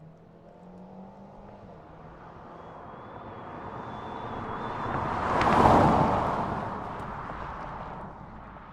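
A car driving past: engine and tyre noise build up as it approaches, peak a little over halfway through, then fade as it moves away.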